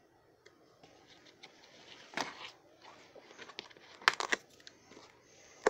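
Cardboard toy box being handled: rustling, scraping and small taps of the packaging, with two louder rustles about two and four seconds in.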